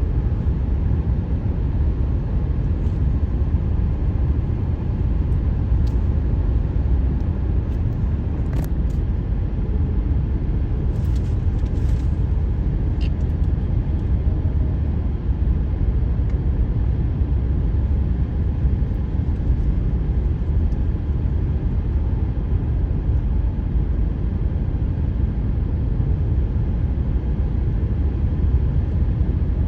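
Steady low rumble of car tyres on freshly laid asphalt, heard from inside the moving car. The uploader puts the pavement's 'ghost noise' down to asphalt that has not yet settled in the cold.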